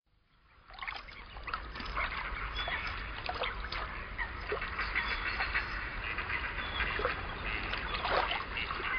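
Water splashing and trickling around a beaver in a shallow stream, under a dense chorus of many short animal calls. It fades in over the first second.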